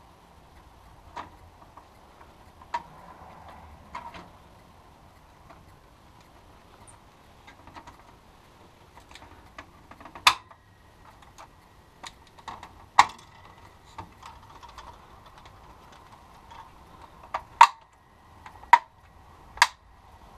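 Plastic back cover of a GM instrument cluster being pressed on, its tabs snapping into place with a series of sharp plastic clicks at irregular intervals, along with light handling of the plastic housing. The loudest clicks come in the second half.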